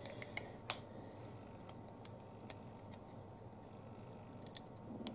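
Light, irregular clicks and ticks of small hand-held parts being handled as thin cutting wire is wound onto its holder, over a faint steady hum.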